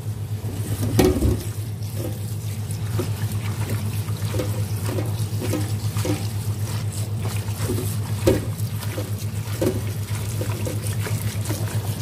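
Tap water running into a basin of molokhia (jute mallow) leaves while hands swish and rub the wet leaves to rinse out sand, with repeated soft splashes and a louder splash about a second in. A steady low hum runs beneath.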